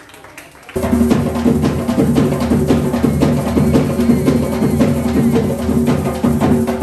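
Drum-led music with a busy, even percussion rhythm, coming in suddenly and loudly about a second in.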